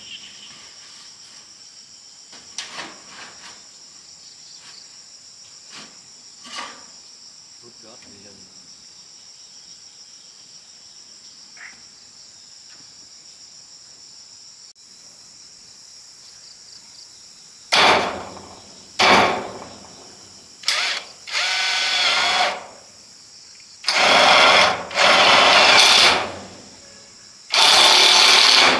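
A power drill run in short bursts of about a second or two, several times over the last third, as screws are driven into corrugated iron roofing. Before the drilling starts, insects buzz steadily and there are a few light knocks.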